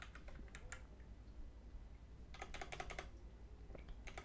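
Computer keyboard being typed on: a few scattered keystrokes in the first second, then a quick run of keystrokes about two and a half seconds in.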